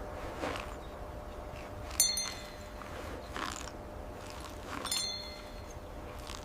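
Two sharp metallic clinks that ring briefly, about three seconds apart, with a few softer knocks between them over a steady background hum.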